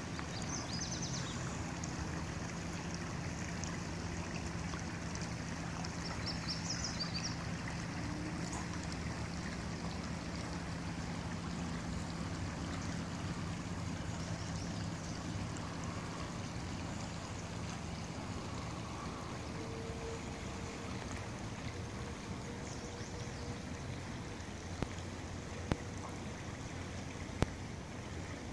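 Steady rush of Mill Creek's water flowing over its rocky bed.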